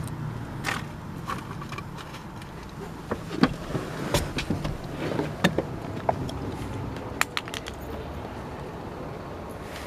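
Handling noise from a handheld camera on the move: scattered sharp clicks and knocks, several in the first seven seconds, over a steady low rumble.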